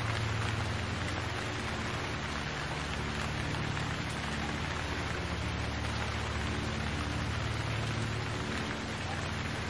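Steady rain, an even hiss, with a low steady hum underneath.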